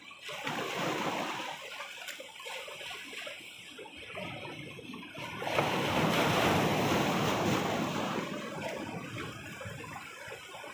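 Sea waves surging against boulders, with a bigger wave breaking and crashing about five and a half seconds in, the loudest part, then washing back.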